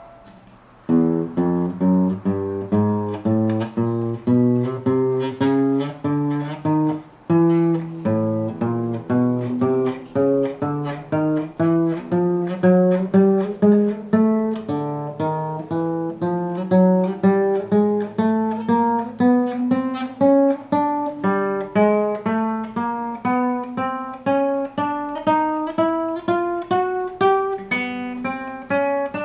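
Acoustic guitar (violão) playing single plucked notes one after another, about two a second, climbing fret by fret up the neck in pitch. Each run falls back to a lower note and climbs again.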